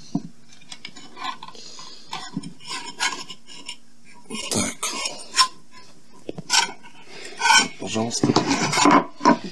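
Black metal enclosure of a small electronics box being opened and handled: its cover and case clatter and knock in irregular clicks, busiest about halfway through and again near the end.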